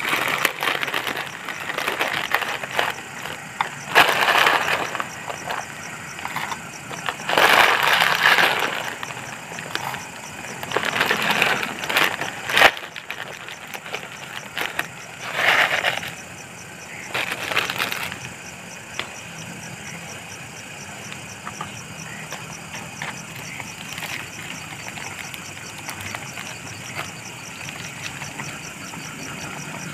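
Several short bursts of crinkling or scraping handling noise a few seconds apart, over a steady background hum. The bursts stop after about eighteen seconds and the hum carries on alone.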